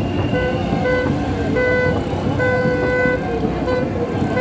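A horn sounding in a string of short and longer blasts at one steady pitch, over the loud din of a crowd.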